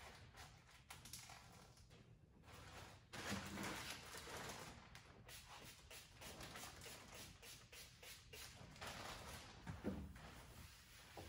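Faint handling noises of barber supplies being set out: clear plastic bags rustling and small items knocking on the counter, in uneven spurts, loudest a few seconds in and again near the end.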